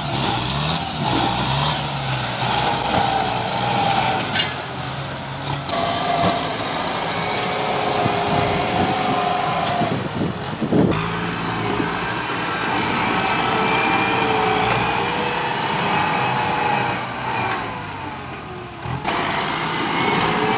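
Kubota tractor's diesel engine running under load as its front blade pushes through brush and small trees, with a higher whine that rises and falls.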